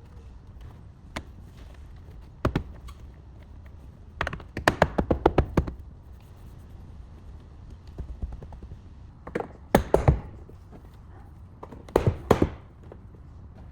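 Sharp taps and knocks: single strikes early on, then quick runs of several taps about four and a half, ten and twelve seconds in.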